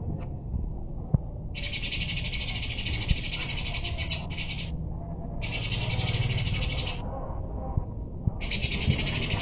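Small songbird giving long, rapid, high-pitched chattering trills in three bursts, each one to three seconds long with short pauses between, over a low background rumble.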